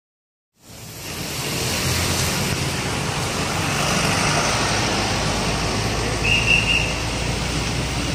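Road traffic on a busy city street: cars, vans and motorcycles passing with a steady engine and tyre noise that fades in about half a second in. A brief high beep sounds about six seconds in.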